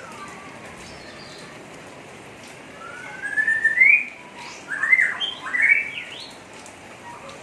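Oriental magpie-robin (kacer) calling in the rough, chattering 'ngeriwik' style used to excite other magpie-robins. A long rising whistle about three seconds in is followed by a quick run of sharp up-and-down notes, over a steady hiss.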